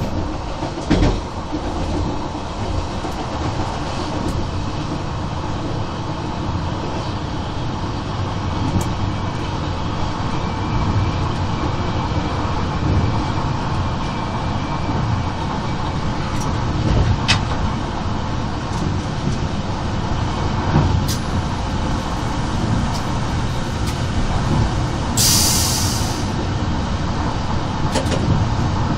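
Stadler GTW 2/6 railcar running along the line, heard from the driver's cab: a steady rumble of wheels on rail with occasional sharp clicks, and a brief hiss near the end.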